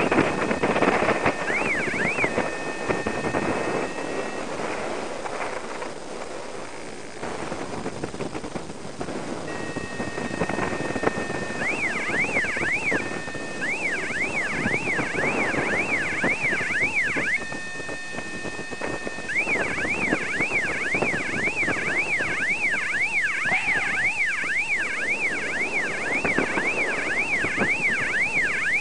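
Wind rushing over the microphone of a paraglider in flight, with an electronic warbling tone on top. The tone holds two steady pitches, then sweeps up and down between them about twice a second, stopping and starting several times.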